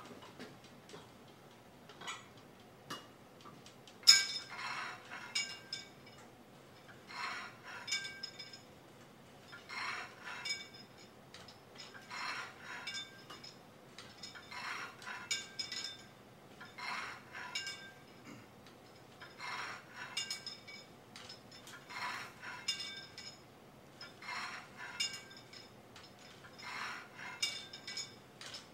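Cable machine weight stack clinking and clanking in a steady rhythm, about once every two and a half seconds, as the plates lift and settle with each rep. The first clank, about four seconds in, is the loudest.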